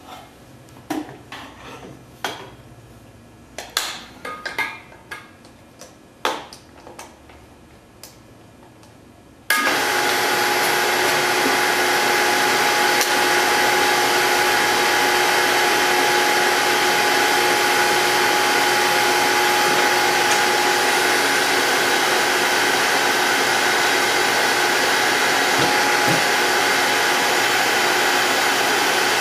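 Scattered clicks and knocks of metal parts being handled on a hydraulic tube bender. About nine seconds in, a powered hydraulic pump starts abruptly and runs loud and steady with a constant whine, driving the 10-ton ram that bends an un-annealed 6061-T6511 aluminum tube.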